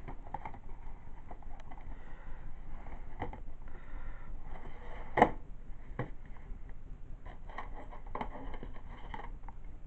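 DVD box set and its cases being handled and put away, with light scrapes and clicks and one sharp knock about five seconds in.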